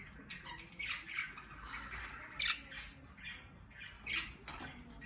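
Budgerigar chattering in a run of short chirps and squawks, the loudest about two and a half seconds in.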